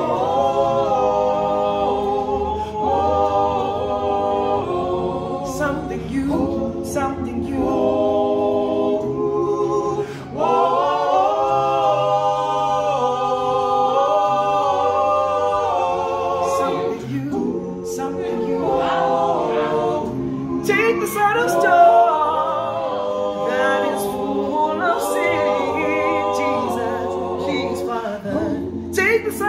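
Male a cappella group of five singing a gospel song in close harmony, a lead voice over held backing chords and a low bass line.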